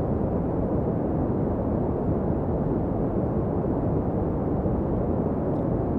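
Synthesized white noise, low-pass filtered into a steady, dark rumble like wind or distant surf, with almost no high end. It is a layered Ableton noise patch built to imitate weather sounds.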